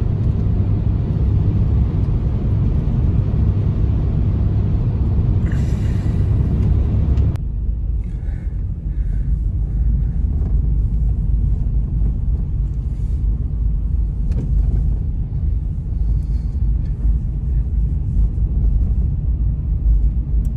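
Heavy wind buffeting the microphone, a loud steady low rumble. About seven seconds in it changes abruptly to a deeper, slightly quieter rumble with faint light ticks over it.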